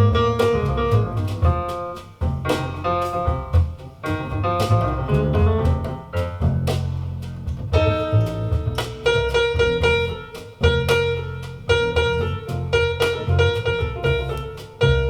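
Instrumental jazz passage from a small combo: piano and plucked guitar playing single-note lines over a double bass, with no vocals.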